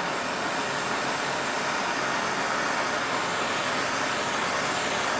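Hand-held gas torch flame hissing steadily while it heats the trunk panel's sheet metal for leading, then cut off abruptly near the end.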